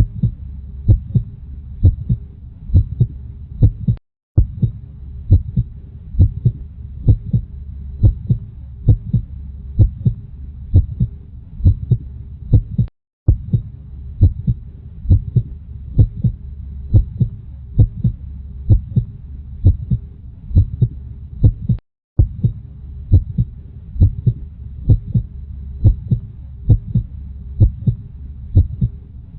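Recorded human-style heartbeat: a steady run of soft low thumps over a low steady hum. It cuts out to silence for a split second three times, about every nine seconds.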